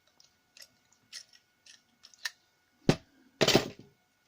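Lockpicking tools being worked out of the keyway of a Bowley lock: a few light metal clicks and scrapes, then a sharp knock and a louder clatter near the end as things are handled and set down.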